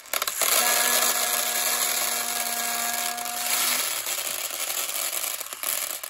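A load of small coloured beads pouring in a steady rush out of a tipped toy dump truck bed into a clear plastic tub, with a steady hum through the first half.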